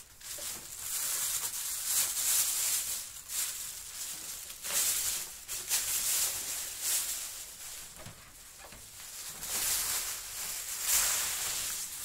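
Thin plastic bag crinkling and rustling in irregular surges as a vacuum cleaner is pulled out of it and the wrapping is stripped away.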